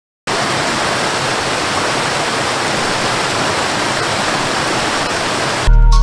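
Steady rushing water of a cascading waterfall, starting abruptly just after the start; music with a deep bass cuts in near the end.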